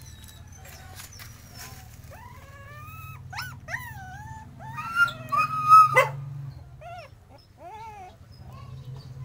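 Puppy whining and whimpering: a run of short high cries that rise and fall in pitch, growing loudest about five to six seconds in, where a sharp yelp cuts off, then softer whimpers near the end.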